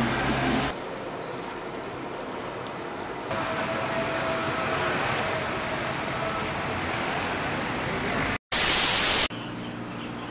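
Traffic noise heard from inside a moving car, cut abruptly to a quieter steady street hum. Near the end a sudden loud burst of hiss lasts under a second.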